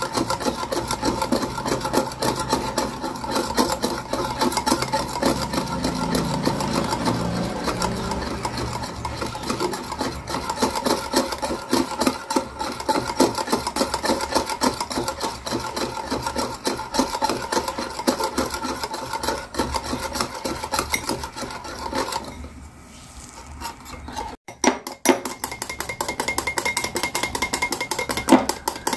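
Wire whisk beating coffee powder, sugar and water in a glass bowl: fast, even scraping strokes of the wires against the glass as the mixture is whipped into thick foam. The strokes stop for about two seconds roughly three-quarters of the way through, then start again with a few clicks.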